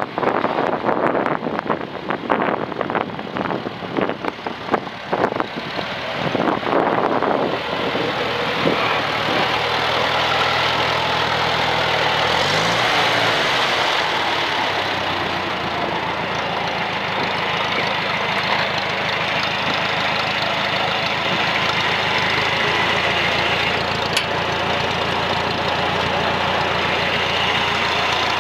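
1956 International 300 Utility tractor's four-cylinder engine running. For the first several seconds the tractor is moving, with uneven gusty noise over the engine. After that the engine runs steadily close up, with a brief change in engine speed about halfway through.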